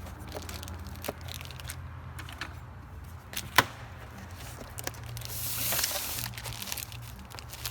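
Handling noise from parts being picked up and moved: a few sharp clicks, the loudest about three and a half seconds in, and about a second of rustling a little past the middle, over a steady low hum.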